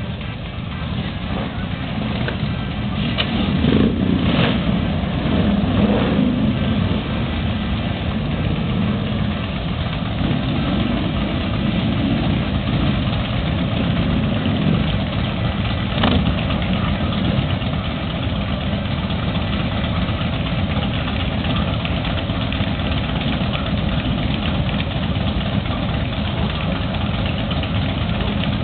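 Several cruiser motorcycles idling together, their engines swelling louder for a few seconds early on as more bikes pull up, then settling into a steady idle.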